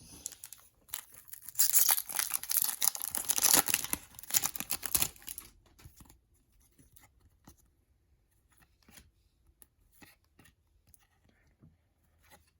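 A foil trading card pack being torn open and crinkled, loud for about four seconds, then soft scattered clicks of cards being handled.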